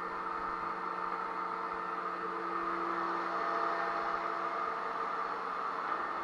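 Electric sander motor running steadily for drywall sanding: a continuous whir and hiss with several constant tones, slightly louder in the middle.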